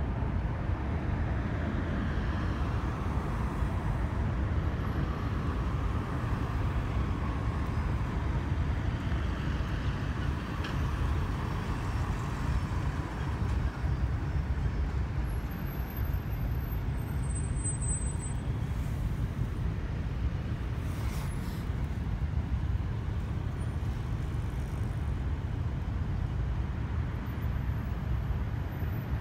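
Steady rush-hour city street traffic: a constant low rumble of passing cars and buses, with a vehicle whine falling in pitch over the first several seconds.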